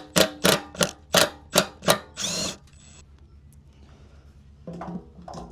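Cordless power driver run in about six short bursts in quick succession, then one slightly longer run about two seconds in, buzzing out the bolts that hold the fuel pump in a motorcycle fuel tank.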